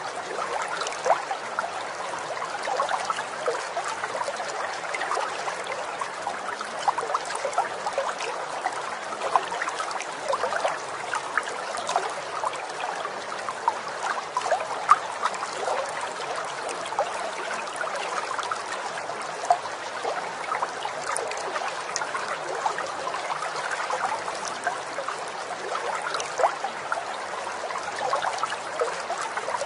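Running stream: a steady babble of flowing water with many small bubbling splashes.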